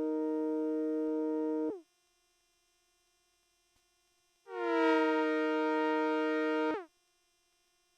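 Behringer Phara-O Mini analogue synthesizer playing a held chord, recorded dry with no effects. The chord stops about two seconds in. After a short silence the same chord sounds again, brighter, and stops shortly before the end.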